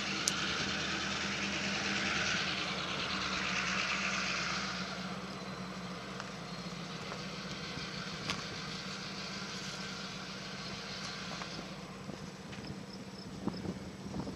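An engine running steadily with a low, even hum, under a hiss that fades away about five seconds in.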